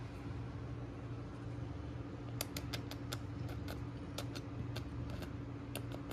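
Steady low hum under a string of quick, sharp smacking clicks that start about two and a half seconds in: kisses pressed onto a cat's tail.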